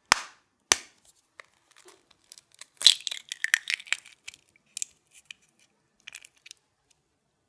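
Two sharp knocks of one egg struck against another, then the crackle of the eggshell breaking open and being pulled apart, with a few lighter shell clicks near the end.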